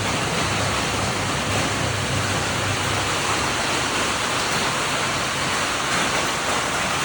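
Steady hiss of rain falling, an even wash of noise with no breaks.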